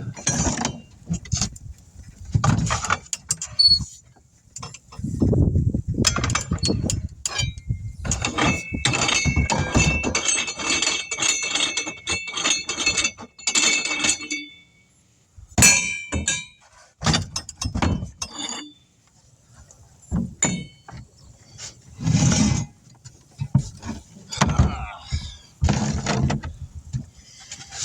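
Irregular thunks, knocks and metal clinks from tires, steel rims and tire tools being handled during hand tire changing, with a long stretch of metallic scraping and ringing in the middle.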